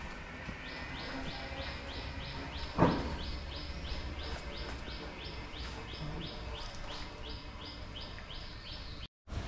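A rhythmic chirping call, short buzzy pulses about three a second, keeps up steadily from under a second in until it cuts off near the end. A single loud thump comes about three seconds in.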